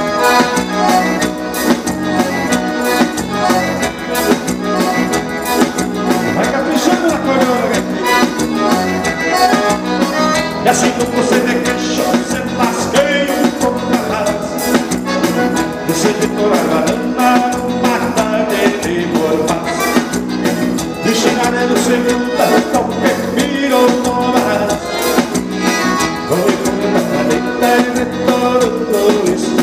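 Live band playing a vanera, an accordion leading the melody over keyboard and a steady, even dance beat.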